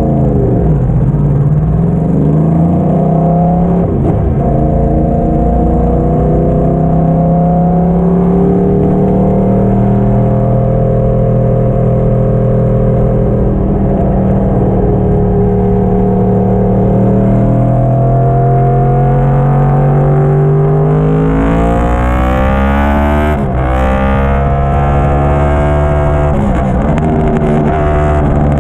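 2010 Yamaha YZF-R1's crossplane inline-four engine, breathing through a Yoshimura slip-on muffler, on the move under throttle. The revs dip about a second in and again about four seconds in, then climb slowly for a long stretch; in the last seven seconds they rise and fall quickly several times.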